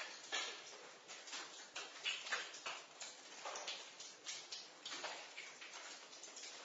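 Water dripping in a basement: single drops falling at uneven intervals, about two a second, over a faint steady hiss.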